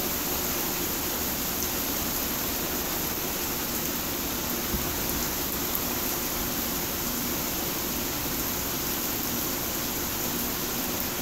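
Thunderstorm downpour: heavy rain falling almost straight down, a steady, even hiss.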